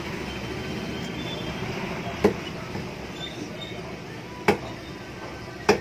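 Three sharp chops of a cleaver through fish into a wooden chopping block, spaced a second or two apart, over steady market background noise.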